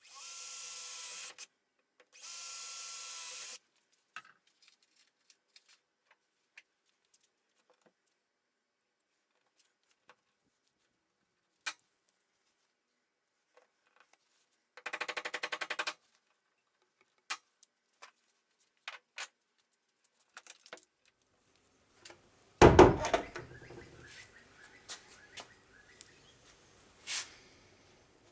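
Power drill running in two short bursts of about a second and a half each, then another short burst with a fast rattle in it about 15 seconds in, among scattered clicks and taps. About 23 seconds in comes a loud thump, the loudest sound, followed by handling noise.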